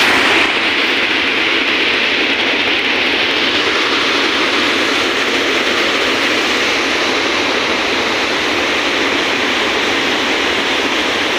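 Heavy water discharge through a dam's open spillway gates: a steady, loud rush of falling and churning water.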